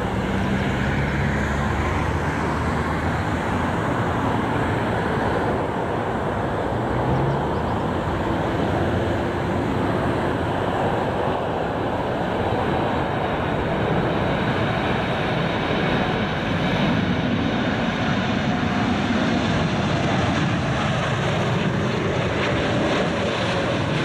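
Boeing 747-8F freighter's four GEnx turbofan engines on final approach: a steady, loud jet engine noise that holds level as the aircraft draws near.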